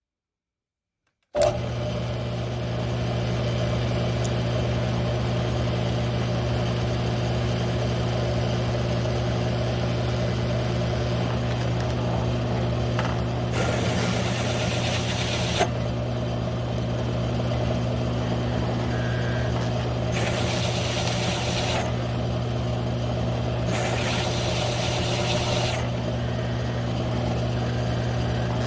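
Mill-drill's electric motor running steadily with a low hum, turning a one-inch hole saw to cut through 3/8-inch steel plate. The sound starts suddenly about a second in. Three times a bright scraping hiss from the saw in the steel rises for a couple of seconds and fades.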